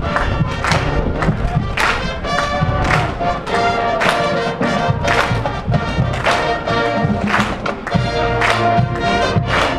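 Marching band playing: brass holding chords over drum hits about twice a second.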